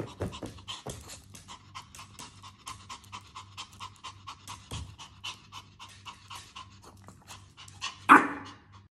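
A Pomeranian panting rapidly, about four to five quick breaths a second, then one short, loud bark about eight seconds in.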